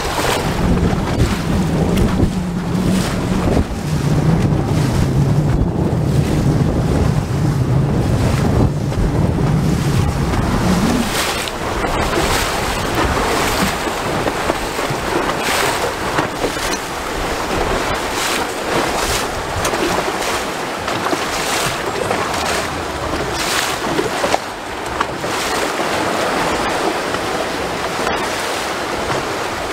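A small boat's engine running at low speed, its pitch dropping about four seconds in and cutting out about eleven seconds in. After that, water splashing against the hull, with wind buffeting the microphone.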